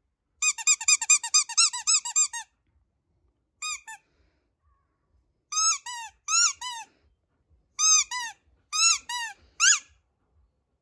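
Squeaky toy buffalo being squeezed. A quick run of about a dozen squeaks comes first, then pairs and short groups of squeaks with pauses between; each squeak is a brief tone that rises and falls.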